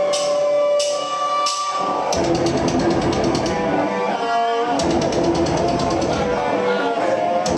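A live rock band opens a song. Held guitar notes ring over steady cymbal hits, then about two seconds in the full band crashes in with guitars, bass and fast drumming.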